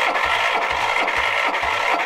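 Electric starter cranking a Lombardini LDA 820 diesel that is not firing: a steady starter whine with slow, even chugs about four a second as the engine turns over with the decompressor open, on a low battery.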